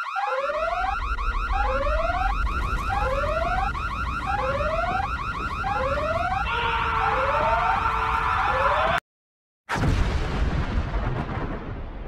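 Emergency alarm sounding repeated rising whoops, roughly every second and a half, over a low rumble, with a hiss joining in about two thirds of the way through. It cuts off suddenly, and after a brief silence a loud explosion-like blast slowly dies away.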